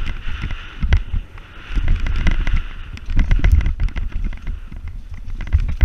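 Wind buffeting the microphone of a camera riding on a downhill mountain bike, with the tyres rolling over dirt and frequent sharp clicks and rattles from the bike jolting over rough trail.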